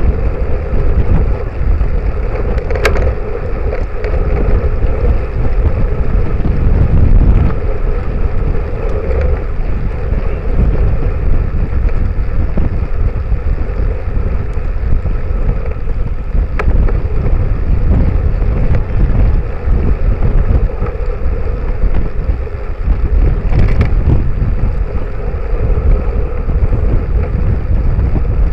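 Wind buffeting the microphone of a Cycliq bike camera on a moving road bicycle: a loud, steady low rumble with road and tyre noise, broken by a few sharp clicks.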